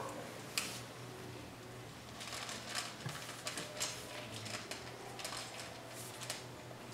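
Puppy eating from a stainless steel bowl: irregular crunches and clicks of chewing, with a faint steady hum behind.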